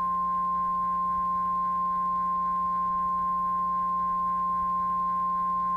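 NOAA Weather Radio 1050 Hz warning alarm tone: a single steady, loud high-pitched tone over a faint low hum. It is the alert that comes before a warning message, here a tornado warning.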